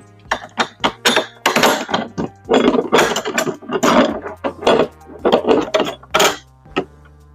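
Parts of a kids' portable basketball hoop being handled during assembly: a rapid, irregular run of knocks, clicks and clatters as a long screw is worked through.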